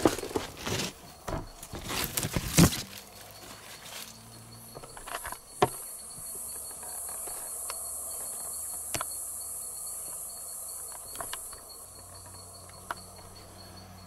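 Rustling and knocks in leaves and leaf litter for the first few seconds, the loudest about two and a half seconds in. Then an insect's steady, high-pitched buzz starts about four and a half seconds in and stops about eleven seconds in, with a few faint clicks.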